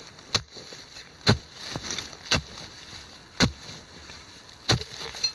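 A digging tool chopping into soil to dig out a metal detector target, in several sharp strokes about a second apart.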